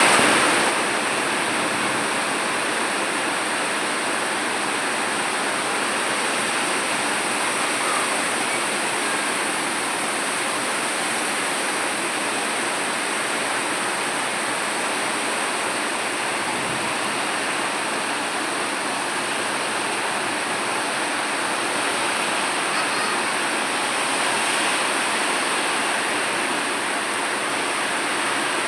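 Rain falling steadily, an even rushing hiss without a break.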